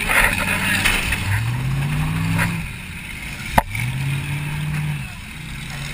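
The Mercury Grand Marquis's 4.6-litre V8 revving up twice, heard from inside the stripped cabin, with a single sharp bang between the two revs a little past halfway.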